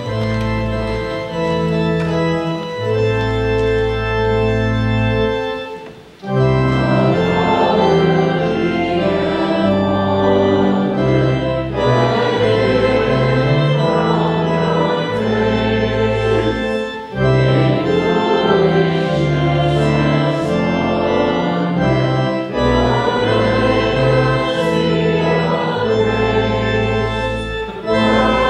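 Church organ playing a hymn in sustained chords over held bass notes, with a short break about six seconds in. After the break, voices sing along with the organ.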